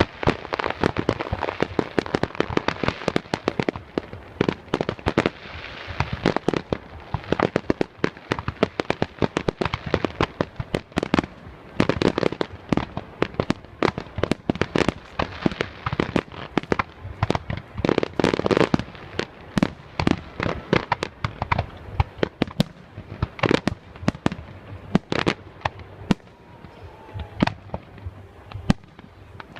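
Fireworks display: a rapid, dense barrage of bangs and crackling that thins to scattered bangs in the last third.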